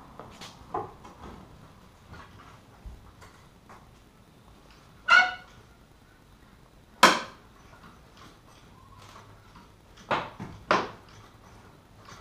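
Pry bar clanking and knocking against a steel crossmember as it is levered to break it loose from the welds that held it in: a handful of separate sharp metal knocks, the loudest about seven seconds in, then two more close together near the end, with small scrapes and clicks between.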